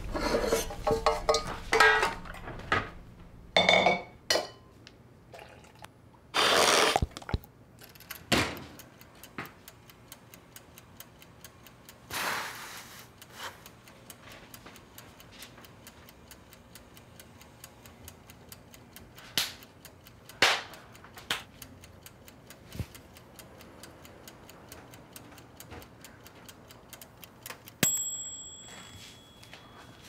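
Kitchen clatter of dishes and utensils being handled, then a steady ticking like a wind-up kitchen timer counting down, ending near the end in a single bell ding that rings out as the timer goes off.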